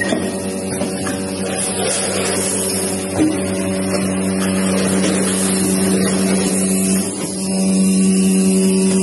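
Vacuum VFFS packing machine running with a steady, loud hum. There is a single click about three seconds in. The hum dips briefly just after seven seconds, then carries on louder.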